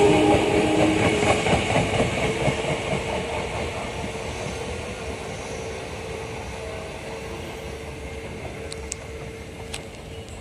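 Unrenewed Odakyu 1000 series electric train moving slowly away and fading, its motors giving a steady whine, with wheels clattering over the rail joints in the first few seconds.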